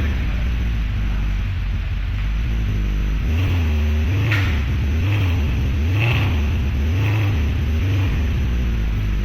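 Mercedes-Benz C63 AMG (W204) V8 running through an IPE valved exhaust: idling, then blipped about five times, roughly once a second, each rev rising and falling, before settling back to idle.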